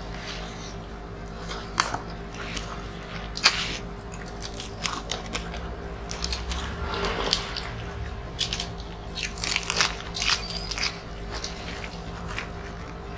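Several people eating grilled chicken and rice with their hands, close to the microphone: chewing with wet mouth smacks and sharp little clicks scattered through, the loudest a few seconds in and again near the ten-second mark.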